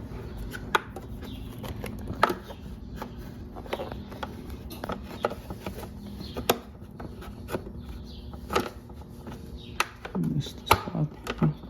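Irregular plastic clicks, taps and knocks as a black plastic motorcycle tail trim piece is slotted into place behind the fairing.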